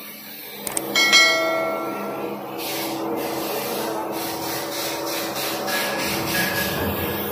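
A click and a bright ringing bell chime from a subscribe-button sound effect about a second in. After it comes a steady hum with a rough, rubbing noise over it, from the hydra crane running.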